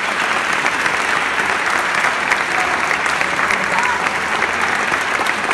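Church congregation applauding: dense, steady clapping.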